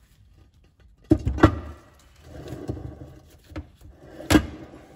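Metal clunks and scraping as a limited-slip differential is handled and lowered into an alloy gearbox case: two sharp knocks a little over a second in, a stretch of scraping and rattling, and another loud knock near the end.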